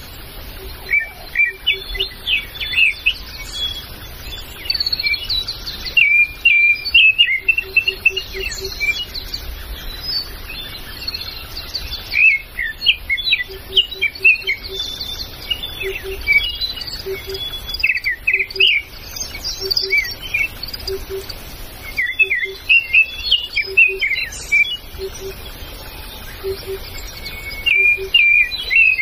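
Several forest birds chirping and trilling in overlapping high calls throughout. Under them, a low short note repeats in pairs and short runs, about once every second or so, from the middle onward.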